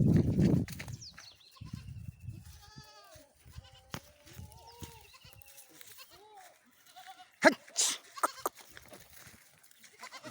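Several goats bleating in short calls at different pitches, one after another. There is a low rumble in the first second and a sharp click with a short loud noisy burst about seven and a half seconds in.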